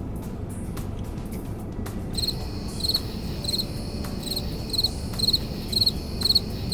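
Cricket chirping begins abruptly about two seconds in, about two chirps a second, each a quick trill of three or four pulses, over a low steady rumble. The crickets fill an awkward silence after a sentence trails off.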